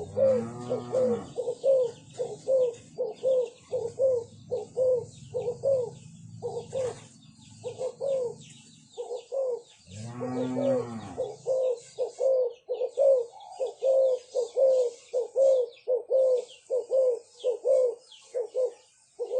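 Turtledoves cooing in a fast run of short, low notes, about two a second, with brief gaps. Twice, about half a second in and about ten seconds in, a longer, lower call rises and falls under the coos.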